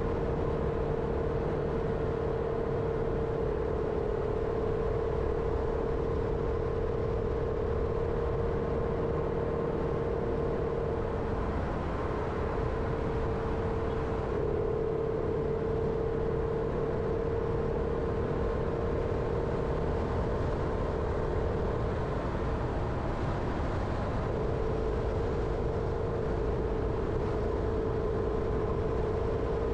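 Jeep Renegade being driven at a steady pace: continuous engine and road rumble with a steady mid-pitched drone.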